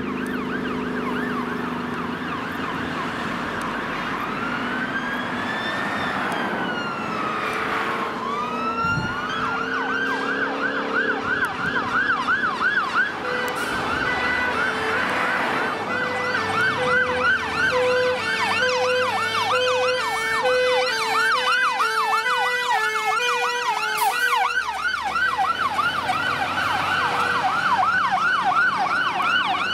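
Fire engine sirens on an emergency response. A slow rising-and-falling wail gives way about ten seconds in to a fast yelp, about three sweeps a second, that runs on. A second, two-note hi-lo tone sounds over the yelp for about ten seconds before dropping out near the end.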